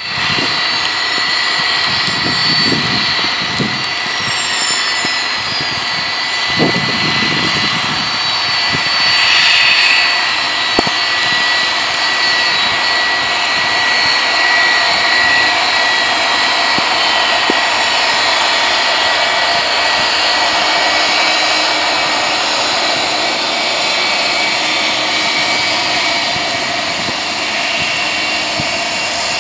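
Jet airliner engine noise: a steady hiss with a thin, high whine.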